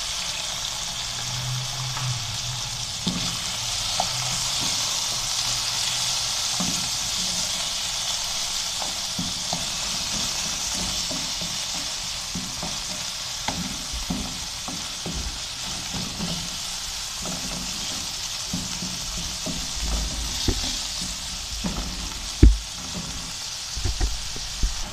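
Diced chicken breast sizzling in hot oil in a non-stick frying pan, stirred with a wooden spatula that scrapes and taps the pan, with one louder knock near the end. The chicken is in its first minutes of sautéing, before it is half done.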